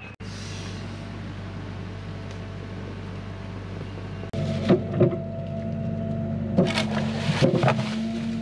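Hyundai HX85A excavator's diesel engine running steadily. About four seconds in it grows louder, with a steady hydraulic whine, and the bucket knocks against rock several times as it digs.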